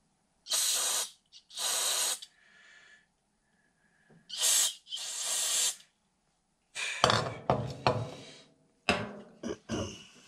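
Aerosol cleaner sprayed through a thin straw into the jets and passages of a disassembled carburetor: four short hisses in the first six seconds, then longer, rougher spraying with a few knocks in the last three seconds.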